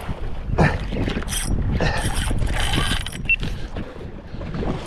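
Shimano Stella spinning reel being cranked against a hooked fish on a bent rod, its mechanism turning over a steady background rush.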